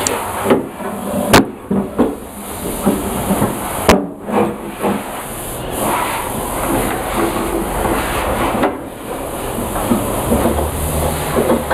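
Metal clinking and clattering as the steel bars and chains of a body-frame straightening puller are handled and fitted together, with two sharp metallic knocks in the first four seconds, over a steady hiss. A low hum sets in near the end.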